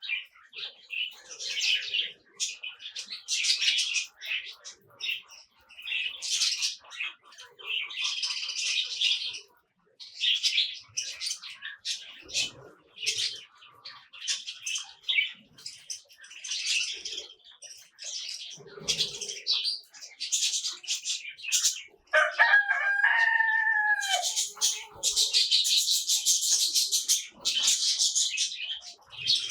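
Small birds chirping and twittering in quick repeated bursts, busiest near the end. A single longer, lower call with a falling end comes about two-thirds of the way through.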